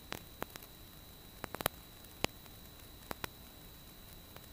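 Steady hiss of recording static with a thin high whine, broken by about ten sharp clicks and crackles, several in quick succession about a second and a half in. It is a faulty audio feed that the uploader thinks comes from the GP10 Bluetooth audio adapter needing an update.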